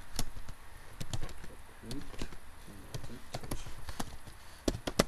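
Computer keyboard typing: irregular keystroke clicks as CLI commands are entered, with a few sharper clicks near the end.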